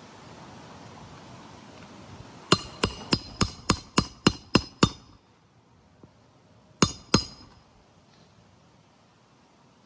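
Hammer strikes with a metallic ring, as on nails during a roofing shingle repair: a quick run of nine blows about four a second, then two more a couple of seconds later.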